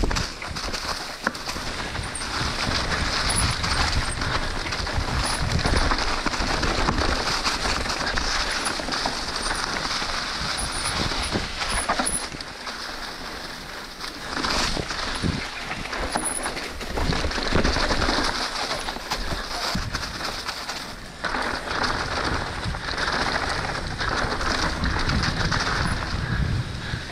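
Trek Slash mountain bike ridden fast down a dirt trail: a steady rush of tyre noise on dirt and leaves, wind on the camera microphone and bike rattle, rising and dipping with the bumps.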